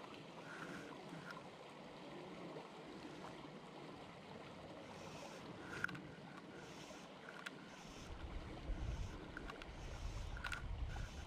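Shallow stream running over gravel, a steady wash of water. From about eight seconds in, wind buffets the microphone with a low rumble.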